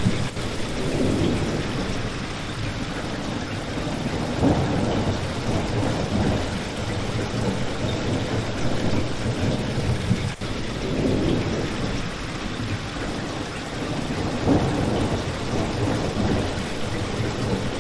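Steady rain pouring down, with low rumbles of distant thunder swelling and fading about four times.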